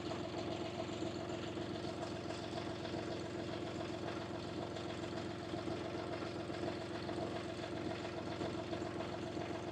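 The 25 hp UHI 254 compact tractor's engine idling steadily.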